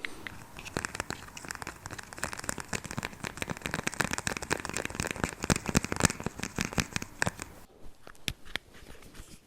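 Dense crinkling and crackling from something being handled, a rapid run of fine crackles that thins to a few scattered clicks near the end.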